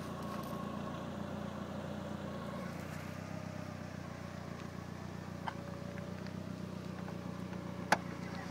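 Lancia Delta HF Integrale Evo II's turbocharged four-cylinder engine idling steadily, with a single sharp click near the end.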